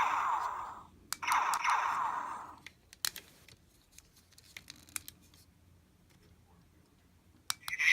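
Electronic blast sound effect from the MP-36 Megatron figure's battery-powered arm cannon, played twice through its small speaker: each a noisy burst with falling sweeps lasting about a second and a half, the second starting about a second in. Sharp clicks come with the bursts and then sparsely through the quieter last half.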